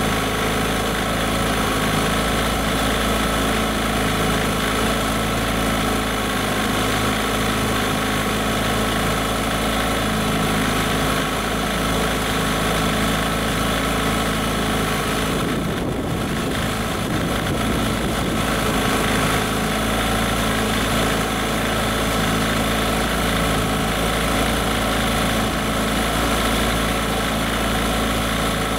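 Johnson/Evinrude 15 hp outboard motor running steadily in a test tank, its lower unit churning the water.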